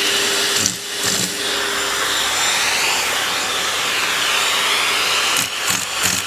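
Vacuum cleaner motor running steadily, its whine drifting slowly up and down in pitch, with a few short knocks or other sounds near the end.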